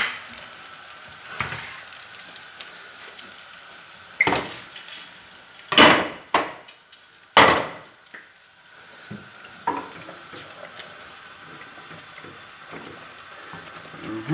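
Diced guanciale sizzling steadily in a frying pan, broken by sharp metal clanks of cookware and utensils, three loud ones between about four and seven and a half seconds in and a few lighter knocks.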